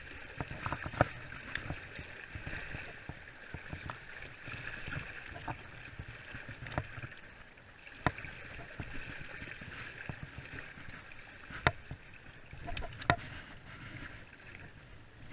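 Shallow river running steadily over a rocky bed, with a handful of sharp knocks as wading gear strikes the stones while someone wades toward the bank.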